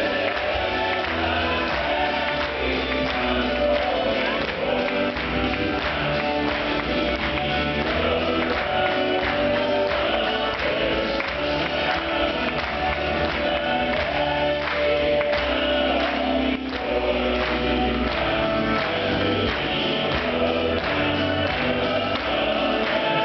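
Southern gospel male quartet singing in close four-part harmony over instrumental accompaniment, in a live concert recording. The voices hold long sustained chords over a steady bass line.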